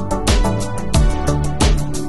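Background music with a steady beat: a low drum thump about every two-thirds of a second under held bass and synth notes.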